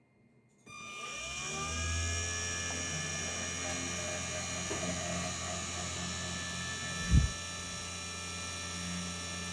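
Spindle motor of a 3018 desktop CNC machine switching on under a second in, its whine rising in pitch as it spins up, then running steadily with a low hum. A short low thump comes about two-thirds of the way through.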